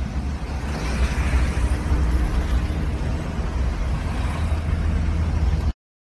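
Road and engine rumble heard from inside a moving car's cabin: a strong, steady low drone under a hiss of tyre and road noise. The sound cuts off abruptly near the end.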